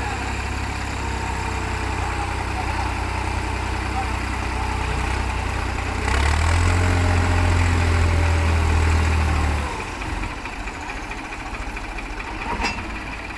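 New Holland tractor diesel engines running in a tractor tug-of-war, heavy engine load. The engine note swells louder about six seconds in, holds for about three and a half seconds, then drops back. A single sharp click comes near the end.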